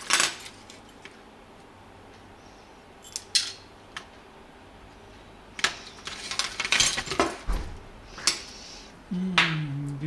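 Plastic hair-dryer parts and small metal tools handled on a table: scattered clicks and knocks, with a busier patch of clatter in the middle. Near the end a person gives a short low hum.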